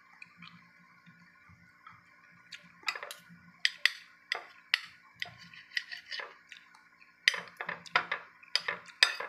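Spoon and fork clinking and scraping against a ceramic dinner plate during a meal, in irregular sharp clicks that start about two and a half seconds in and come thicker near the end.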